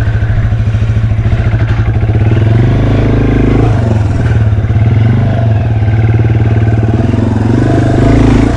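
Yamaha TW200's single-cylinder four-stroke engine running at low revs with an even low beat, the revs rising and dropping as the throttle is worked, about three seconds in and again near the end.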